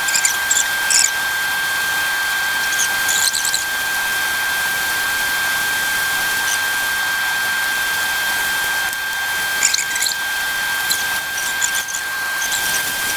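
Chicken pieces deep-frying in hot oil in an aluminium karahi: a steady sizzle with scattered small crackles. A steady high-pitched whine runs underneath.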